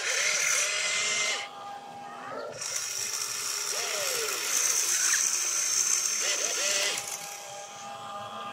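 Electric gear motors of an RC excavator whirring as the boom, arm and bucket swing and dump, stopping and starting: a pause about a second and a half in, running again from about two and a half seconds, and falling off again near the end.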